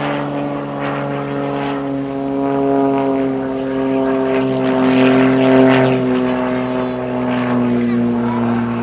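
Aviat Pitts S-2C aerobatic biplane's six-cylinder Lycoming engine and propeller droning in flight, its pitch slowly falling as it passes. It grows louder to a peak a little past halfway, then eases off.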